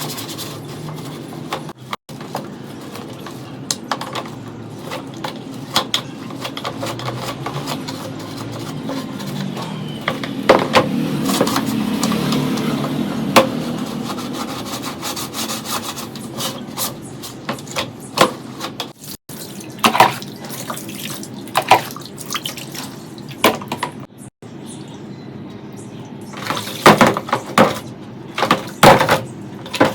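Workshop handling noise: a steady rushing sound with scattered sharp clicks and knocks of tools and fan parts being handled. A louder rushing swell comes between about 10 and 16 seconds in, and the knocks come thicker near the end.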